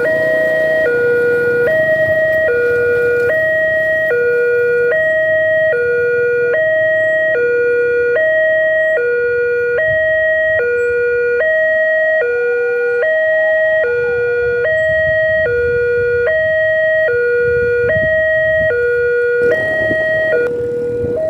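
Railway level-crossing warning sounder on the signal post's loudspeaker: an electronic two-tone alarm alternating steadily between a lower and a higher tone, each held under a second. It warns that a train is approaching.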